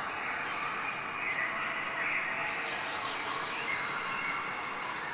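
Steady outdoor nature ambience: an even hiss of noise with a thin, high, steady tone and faint chirps.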